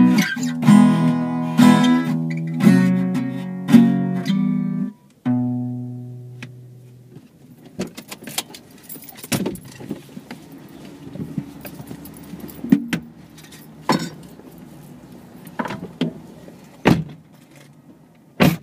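Strummed acoustic guitar chords, about one strike a second, ending with a final chord that rings out and fades about five seconds in. After that, only scattered clicks and knocks.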